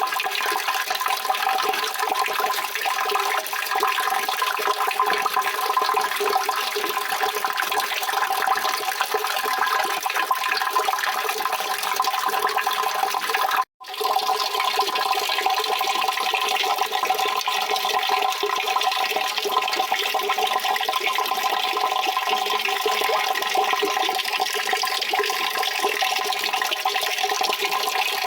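Steady rushing water, a continuous even wash of noise. It cuts out completely for a split second about halfway through, then carries on unchanged.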